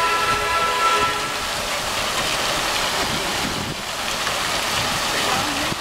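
Fountain water splashing and spraying in a steady hiss, with a held chord of several steady tones over it that stops about a second and a half in.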